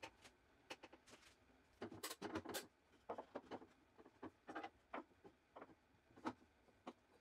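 Bar and pipe clamps being set and tightened on a glued-up wooden shelf: a quiet, irregular run of light clicks and knocks, busiest about two seconds in.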